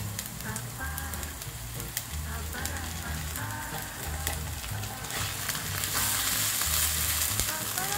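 Chopped onion and garlic frying in oil in a non-stick pan, with a steady sizzle and crackle. A silicone spatula is stirring, and the sizzle gets louder about five seconds in as tomato sauce is stirred into the hot pan.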